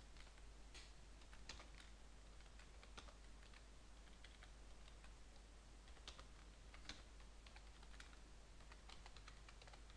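Faint computer keyboard typing: short commands tapped out in scattered, irregular keystrokes.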